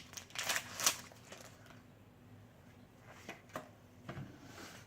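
Pokémon trading cards being handled and slid through by hand: a couple of brief rustling swishes in the first second, then a few soft clicks and rustles.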